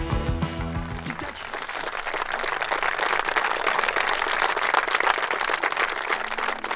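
Audience applauding, a dense crowd clapping that swells after the first second as music fades out beneath it.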